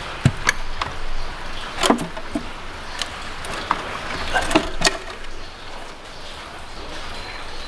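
Aluminium top cover of an engine's supercharger being worked loose and lifted off by hand: a series of sharp knocks, clicks and scrapes, most of them in the first five seconds.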